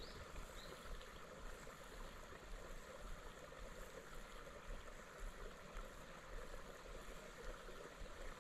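Faint steady outdoor hiss, with a few faint high chirps in the first second.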